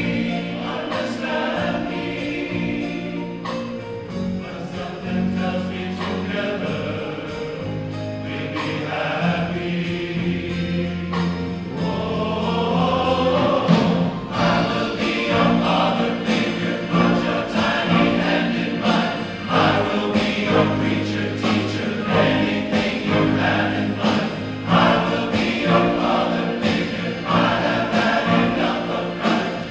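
Large men's chorus singing.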